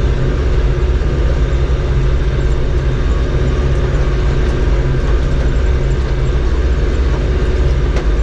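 Tractor engine running steadily under load, pulling a round baler through hay.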